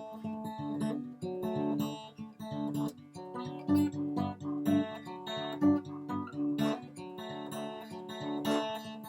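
Acoustic guitar playing a strummed and picked introduction, repeated chords with a clear plucked attack on each.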